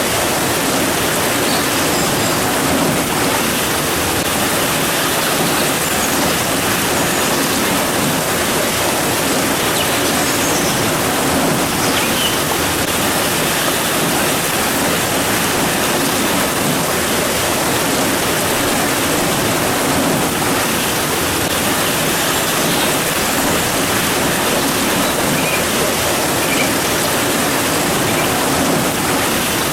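Steady rain falling: a dense, even hiss that does not let up.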